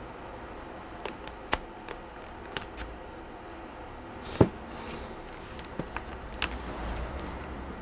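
Light scattered clicks and taps from handling a Dell XPS 13 9350 laptop display assembly and its cables by hand, with one sharp knock about four and a half seconds in, over a steady low hum.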